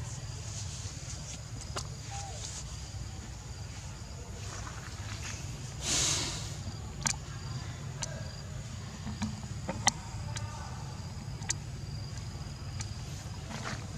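Forest ambience: a steady high-pitched insect drone over a low rumble, with scattered light clicks and a brief rustling burst about six seconds in.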